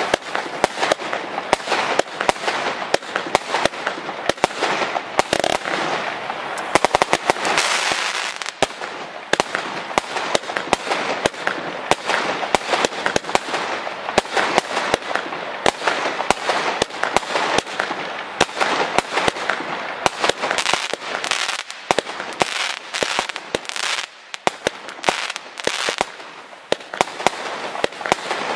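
WECO Dynasty firework battery firing: a rapid, continuous run of sharp launch and burst bangs, with a thicker stretch of hiss about seven seconds in.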